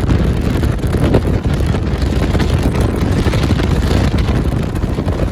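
Motorboat under way at speed: a loud, steady rushing rumble of motor and water, with wind buffeting the microphone.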